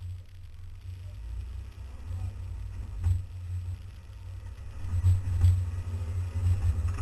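Off-road vehicle crawling slowly over rock ledges: a low, uneven rumble with knocks and rattles as the body jolts over the rocks, once about three seconds in and more loudly around five seconds in.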